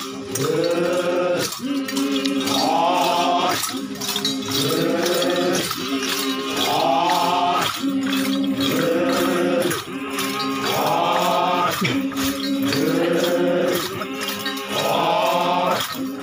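Men of a Yimchunger Naga dance troupe chanting in unison, a short rising-and-falling phrase repeated about every two seconds over a held low note, with sharp clicks keeping the beat.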